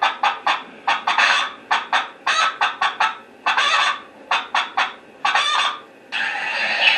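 Recorded geese honking in a rapid series of separate calls, played back from a farm-sounds MP3 through a small speaker on a sound card. About six seconds in, a continuous, busier sound from the next part of the recording takes over.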